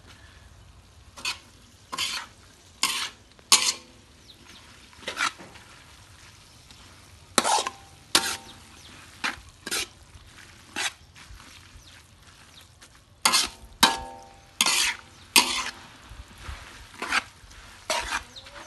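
Metal spatula scraping and knocking against a metal wok while stir-frying noodles. The strokes come irregularly, roughly one a second with a short pause midway, and several leave a brief metallic ring.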